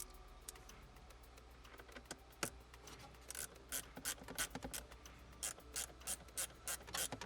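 Torx screws being tightened by hand in the blower's mounting points: a run of sharp mechanical clicks, sparse at first and quicker from about halfway through.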